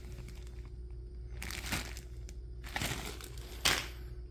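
Plastic-wrapped firework packages rustling and crinkling as they are handled, in a few short bursts, the loudest near the end.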